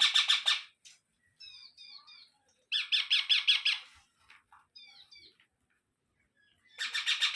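Ringneck parrots calling: three bursts of rapid, harsh squawks, each about a second long, with softer short chirps in between.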